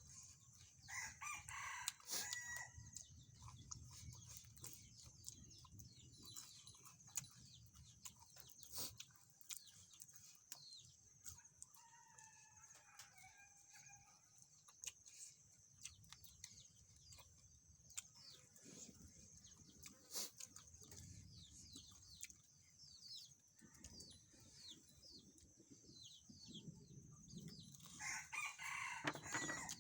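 Faint rooster crowing, once about a second in and again near the end, with a fainter call in the middle, over a steady high-pitched hum and scattered small clicks.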